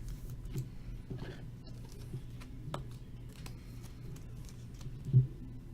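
Trading cards and packs being handled on a table: scattered light clicks and rustles over a steady low hum, with one dull thump about five seconds in.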